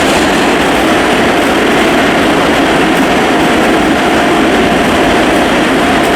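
Train running: a loud, steady rushing noise with a faint steady whine.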